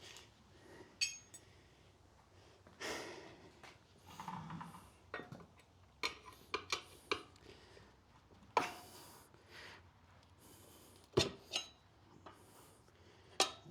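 Steel tire levers clinking and scraping against the wheel rim and rubber as the old motorcycle tire's bead is pried off by hand, in scattered sharp clicks and short scrapes.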